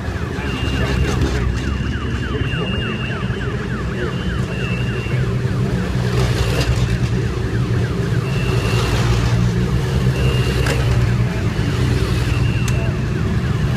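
Formula Three racing cars' four-cylinder engines running at low speed as the cars roll through the pit lane, a steady low engine note that rises slightly a couple of seconds in and grows louder in the second half. A high beeping tone sounds on and off throughout.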